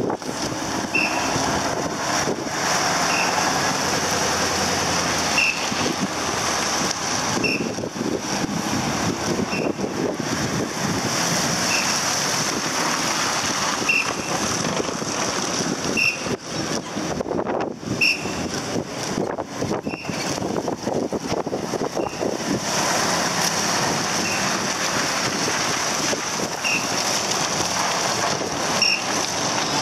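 Self-Defense Force heavy military trucks driving past one after another, engines and tyres running steadily. A short high beep repeats about every two seconds.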